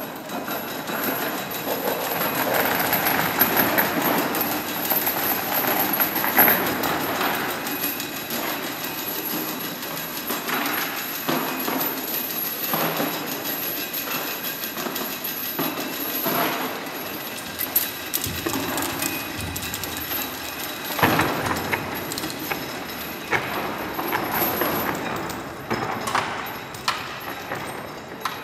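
Heavy steel chains of an animatronic rig rattling and clanking as they haul and swing a fibreglass puppet made of metal-linked parts, with sharper knocks of chain and limbs among the rattling. The loudest knocks come about six seconds in and again around twenty-one seconds in.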